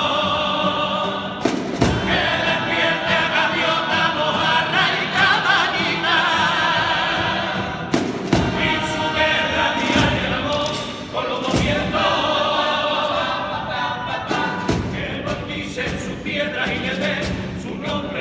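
All-male vocal group singing a popurrí in several-part harmony, live on stage, with a few sharp percussive hits cutting through the singing.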